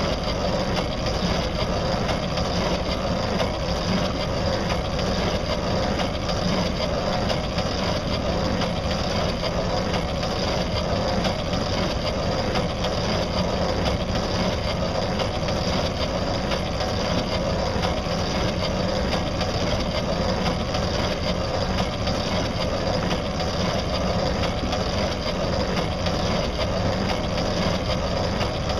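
Small boat's motor running steadily under way, with wind and water noise over it.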